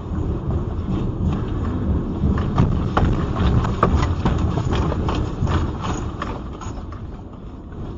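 Heavy rumble inside a moving car with many rapid, irregular knocks and rattles, the car and the road shaking in a strong earthquake; loudest in the middle, easing off near the end.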